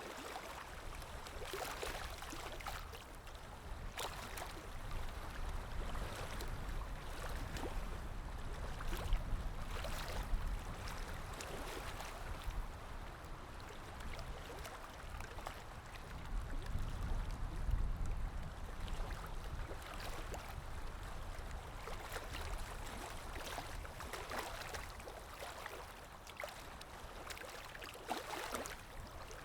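Water lapping in small, irregular splashes, over a low wind rumble that swells twice, a third of the way in and again a little past the middle.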